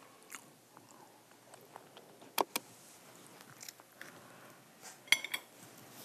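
Quiet eating sounds: chewing with a few sharp, crisp clicks and crunches from fresh lettuce leaves, and a quick run of clicks about five seconds in.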